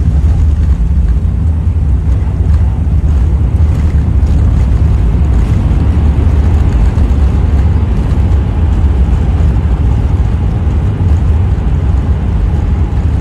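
Airliner cabin noise during landing and the roll-out on the runway: a loud, steady, deep rumble with no breaks.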